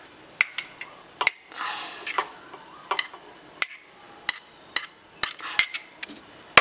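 Metal spoon clinking against a cup and a steel mixer-grinder jar as grated coconut is scraped and tapped out: about a dozen sharp clinks at uneven intervals, with a soft swish of coconut sliding in about two seconds in.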